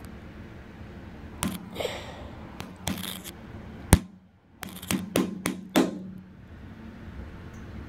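Knocks, scrapes and rubbing from a phone being handled close to its microphone, over a steady low hum. The loudest is a sharp knock about four seconds in, followed by a brief dropout and then a quick run of about five knocks.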